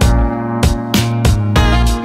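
Background music: an upbeat track with a steady drum beat over bass and held chords.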